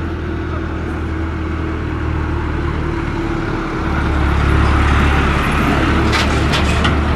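A nearby engine running steadily with a deep low hum and a faint steady tone, getting louder about four seconds in. A few short clicks come near the end.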